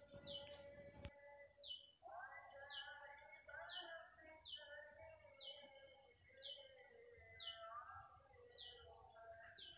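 Dusk chorus of insects and birds: a steady high-pitched insect drone, a short falling chirp repeated about every three-quarters of a second, and warbling bird calls underneath.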